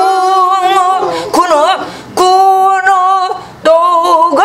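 A woman singing a Korean southern folk song (namdo minyo) in a throaty traditional style. She holds long notes with wide vibrato, in several phrases with short breaks between them.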